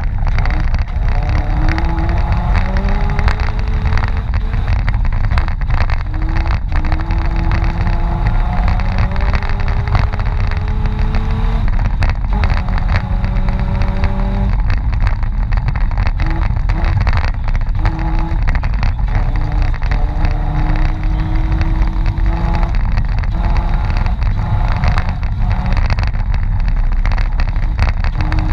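Mitsubishi Pajero engine driven hard off-road. Its pitch climbs, falls back and climbs again over and over as the revs rise and drop, over a constant low rumble with scattered knocks and bumps.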